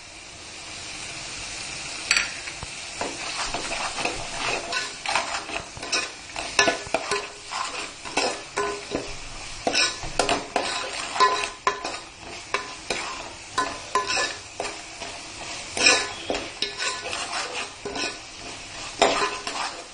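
A metal spoon stirring and scraping against a pot, with irregular clacks and scrapes, over the sizzle of onion-tomato masala frying in oil and ghee with freshly added ginger-green chili paste and ground spices.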